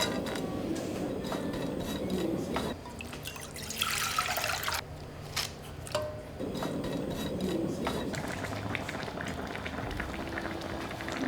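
Liquid being poured, in three separate pours, the middle one brief and higher-pitched.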